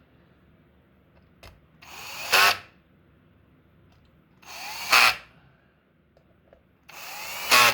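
Cordless screw gun driving small screws three times, each run about a second long and loudest at its end. It is set to minimum torque so the screws, which thread into the screen, don't break it.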